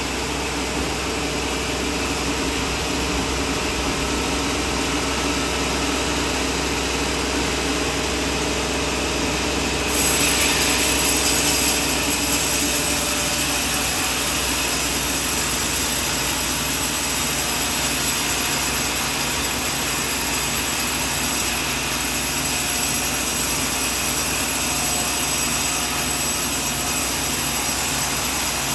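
Sawmill running steadily while sawing a coconut trunk. About ten seconds in it grows louder, with a sharper hiss added that then holds.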